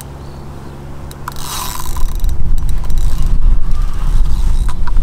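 Fixed-spool fishing reel (Korum KXi 80 Freespin) working mechanically while a hooked barbel is played. From about two seconds in, a heavy low rumble on the microphone becomes the loudest sound.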